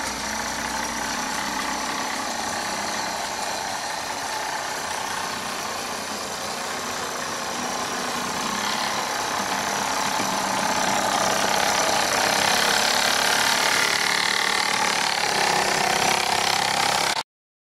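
Meccano model railbus running along the track, a steady mechanical running noise that grows louder over the second half, then cuts off abruptly near the end.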